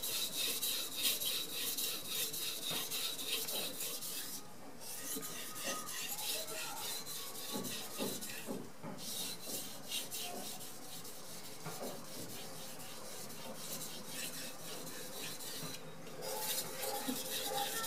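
Steel knife blade rasping over a wet Carborundum sharpening stone in quick, light back-and-forth strokes, with a few brief pauses. This is the edge being polished in the final refinement stage.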